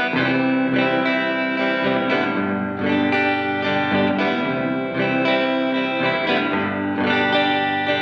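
Electric guitar played through a Fender Reflecting Pool delay and reverb pedal. Picked notes and chords change about every second, each ringing on into the next in a sustained reverb wash.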